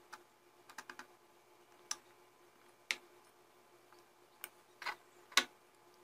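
Scattered light clicks and taps of a metal spoon against a glass honey jar and glass bowl while thick honey is scooped out, about seven separate ticks with the sharpest near the end.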